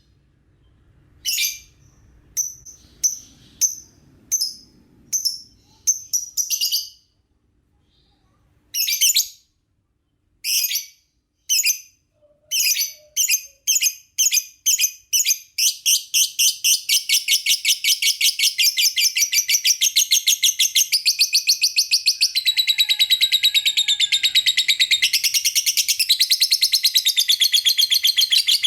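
Lovebird chirping: sharp, high-pitched chirps come singly with pauses at first. From about twelve seconds in they come faster and faster, until they run together into a rapid, unbroken chatter for the second half.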